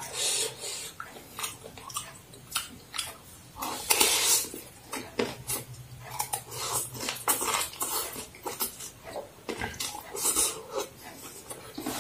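Close-up eating sounds of fried egg noodles: chewing and slurping, with a spoon and fork clicking against the bowl at irregular moments.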